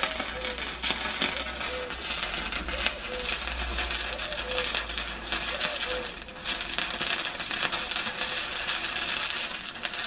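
Stick (MMA) arc welding of thin sheet steel with a 1.6 mm electrode: the arc gives a continuous crackling sizzle over a steady low hum.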